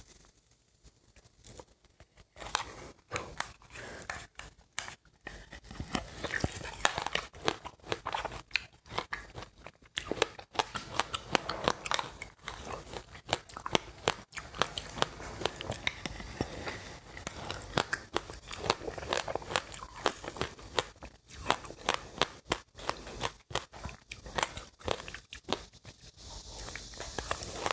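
Close-up chewing of crunchy seeds: a dense, irregular run of crisp crunches and crackles, starting about two seconds in.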